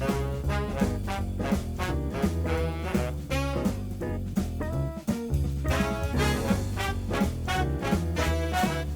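Upbeat swing-jazz background music with brass and a steady beat.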